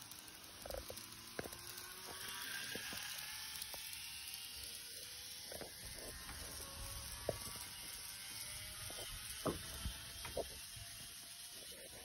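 Eight-car N-gauge model train of a 225 series 100 running on track: a faint motor whine that slowly shifts in pitch over a steady hiss, with a few sharp clicks in the second half.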